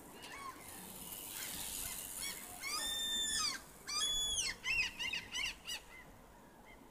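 A gull calling overhead: two drawn-out calls about a second apart, then a quick run of shorter calls.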